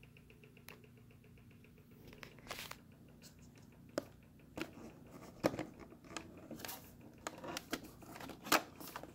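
Faint plastic clicks, knocks and rustling as the fold-down LCD screen of a Sony under-cabinet kitchen radio is swung up and tucked away underneath the unit, starting about two seconds in, over a low steady hum.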